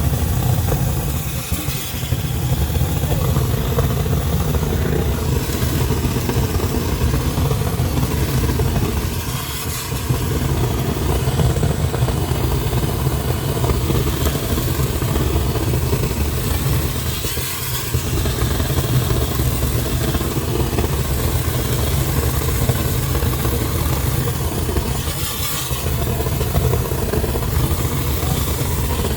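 An engine running steadily throughout, easing off briefly about every eight seconds.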